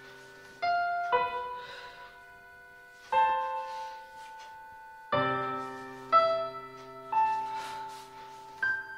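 Slow piano music: single notes and small chords struck every second or two and left to ring out, with a deeper chord about five seconds in.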